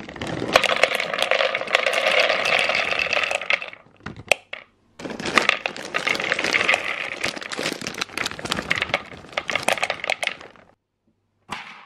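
Whole hazelnuts poured into a clear plastic food processor bowl, rattling and clattering against the plastic and the blade in two pours with a short pause about four seconds in. A brief knock comes near the end.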